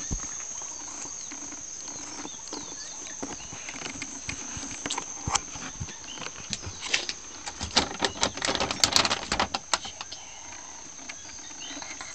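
Plastic poultry feed bag crinkling and rustling as it is handled, the crackles thickening into a dense run a little past the middle. A steady high insect chirring sounds underneath.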